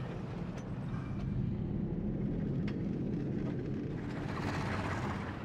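Freight train wagons rolling along the rails: a steady low rumble with a few faint clicks, and a brighter rushing noise swelling about four seconds in.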